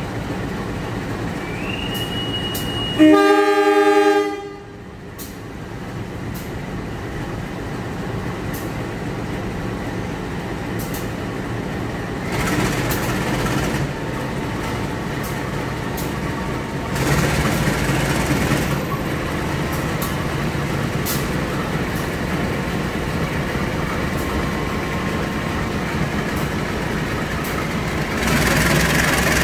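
KAI CC 203 diesel-electric locomotive sounding one loud horn blast of about a second, a few seconds in, just after a short rising whistle. Its diesel engine then runs as it pulls the train away, getting louder in steps, the last near the end.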